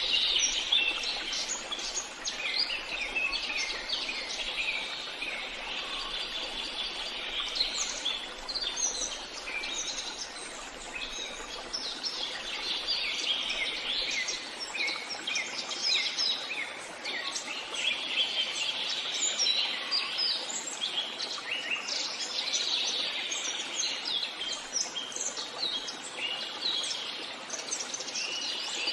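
Forest birdsong: many birds singing at once in a dense, overlapping chorus of short high chirps and trills.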